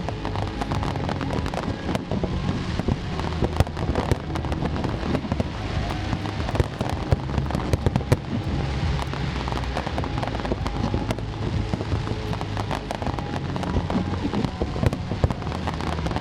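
Fireworks display going off continuously: a dense, unbroken run of sharp cracks and crackling from bursting shells, with music playing faintly underneath.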